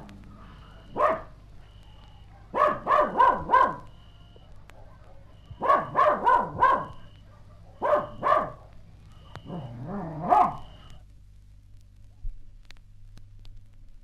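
A dog barking in short runs of one to four barks, over a steady low hum; the barking stops about eleven seconds in.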